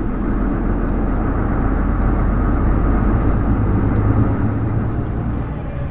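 Semi-truck engine and road noise heard from inside the cab while driving: a steady low drone that swells a little in the middle and eases off near the end.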